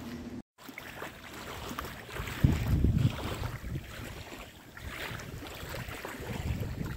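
Wind buffeting the microphone in irregular gusts, strongest about two and a half seconds in. The sound drops out completely for a moment just after the start.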